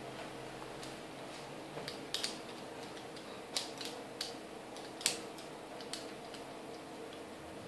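A handful of small, sharp plastic clicks and taps as wire ends are handled and pushed into the terminals of a plastic fluorescent-tube lampholder. The loudest comes about five seconds in, over a faint steady hum.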